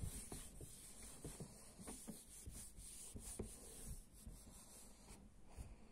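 Whiteboard eraser wiping marker writing off a whiteboard: faint, repeated rubbing strokes across the board's surface.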